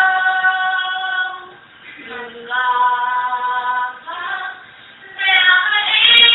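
A young girl singing a slow song in Dutch, holding long notes in three phrases with short pauses for breath between them.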